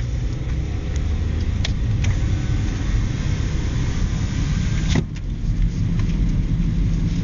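Car driving, its engine and tyre noise a steady low rumble heard from inside the cabin, with a few light clicks and a sharper click about five seconds in.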